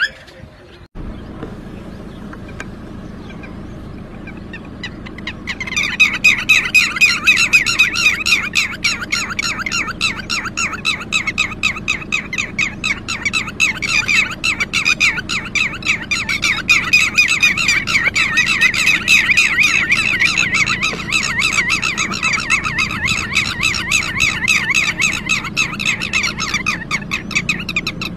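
Red-wattled lapwing giving rapid, repeated sharp alarm calls in a continuous stream, starting about five seconds in. This is the agitated calling of a parent bird that has lost its chick.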